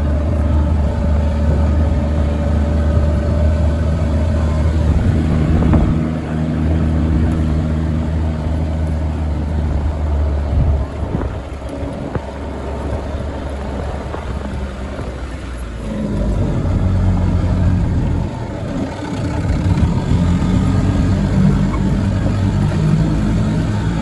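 Motor vehicle engine running as it drives along a gravel lane, a steady low drone whose note changes about eleven seconds in and again around sixteen seconds in.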